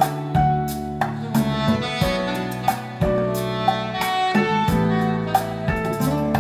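Instrumental break of a Vietnamese pop ballad played back over Gauder Akustik Darc 80 hi-fi loudspeakers: sustained string-like melody over a steady beat.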